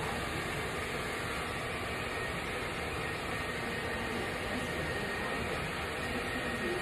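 Hooded salon hair dryer running with a steady rushing blow of air and a faint high whine.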